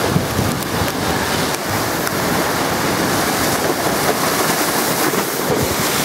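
Large storm-driven lake waves surging and breaking against a concrete seawall, a steady loud rush of churning water, with wind buffeting the microphone.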